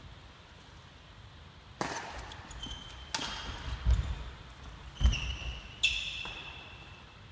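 Badminton rally: several sharp, echoing racket strikes on the shuttlecock, mixed with the short squeaks of court shoes and heavy footfalls on a wooden hall floor.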